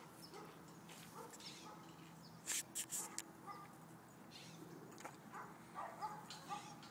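Faint whimpering from a terrier, a few short high-pitched whines, with a quick run of three or four sharp clicks about two and a half seconds in.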